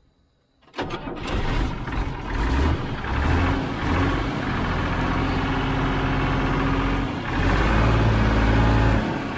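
Tata S-model 4x4 truck's diesel engine cranking and catching about a second in, then running, with the revs rising and falling.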